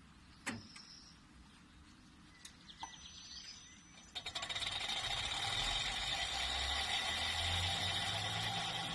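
Hitachi Yutaki S80 heat pump starting up. A sharp click comes about half a second in, then a few light ticks. From about four seconds in a loud, harsh, fast-pulsing buzz sets in, with a low hum building beneath it. This is the strange startup noise of the brand-new unit.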